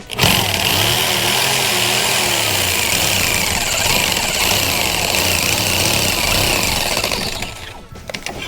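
Power saw running steadily as it cuts through the plastic condensate drain pipe, starting just after the start and stopping near the end.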